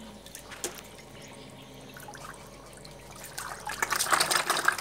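Water splashing and dripping as a crowd of catfish thrash at the surface of a plastic tub while they feed. Low and patchy at first, then a spell of louder splashing from about three and a half seconds in.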